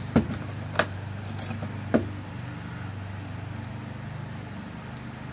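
Small metal lock parts clicking and rattling as a tail piece is screwed onto a rekeyed lock cylinder. There are three sharp clicks in the first two seconds, over a steady low hum.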